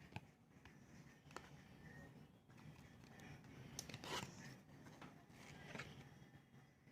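Faint rustling and a few light clicks of trading cards being handled, over near silence; the loudest rustle comes about four seconds in.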